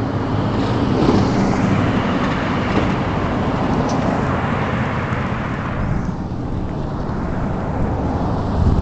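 A vehicle passing close on the road, its tyre and engine noise loud at first and fading about six seconds in, leaving a low traffic rumble.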